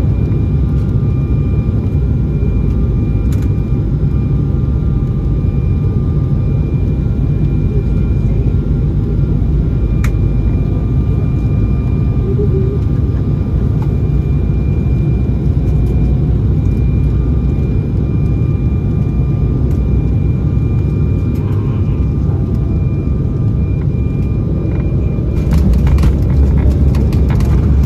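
Cabin noise of an Embraer E195 on final approach: a steady rumble of airflow and the CF34 turbofan engines with a thin, steady whine. About 25 seconds in the rumble deepens and a burst of rattling sets in as the main wheels touch down on the runway.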